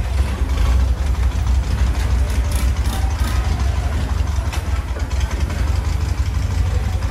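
Boat engine idling, a steady low rumble.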